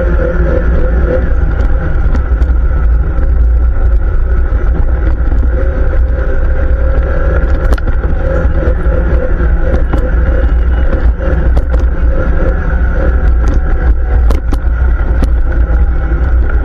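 ATV (quad bike) engine running steadily while riding, with a heavy low rumble underneath and a few scattered clicks.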